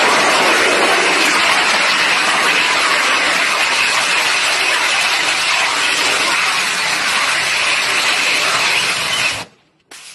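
Rocket engine of a small vertical-landing test rocket running as a steady rushing noise while it descends and touches down, then cutting off suddenly about nine seconds in: engine shutdown after landing.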